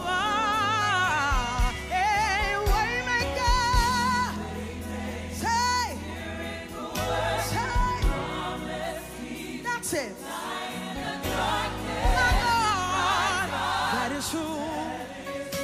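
Gospel worship music: voices hold long wavering notes with vibrato over a steady bass line, without clear words.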